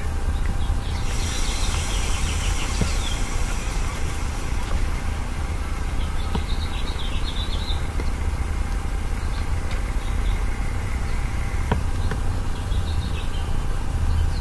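Small birds chirping in short bursts every few seconds over a steady low rumble.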